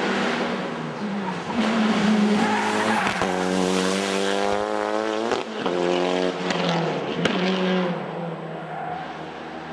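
Mitsubishi Lancer Evolution II rally car with a turbocharged 4G63 four-cylinder and dog-box gearbox, accelerating hard up and past. The engine note climbs in pitch, then breaks off sharply about three seconds in, again about halfway and again about seven seconds in, as it shifts up through the gears. It fades away near the end.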